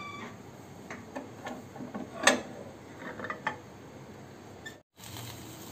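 A few light clicks and knocks, with one sharper clink about two seconds in: a glass baking dish being lifted off a microwave oven's glass turntable.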